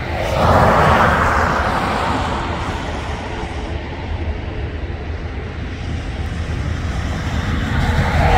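Jet aircraft engine noise: a rushing roar that swells about half a second in and fades over the next few seconds, with a faint steady hum beneath, then swells again near the end.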